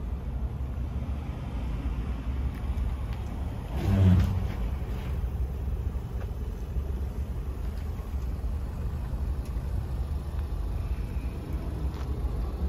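A 2022 Mitsubishi Outlander backing slowly makes a low, steady rumble. About four seconds in there is a brief, louder thump.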